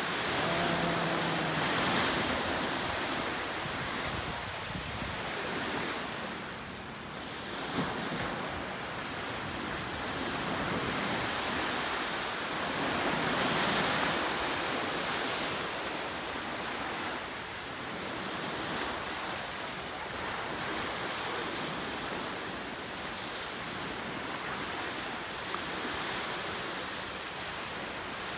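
Ocean surf: waves breaking and washing up a beach, a rushing noise that swells and fades, loudest about two seconds in and again around fourteen seconds.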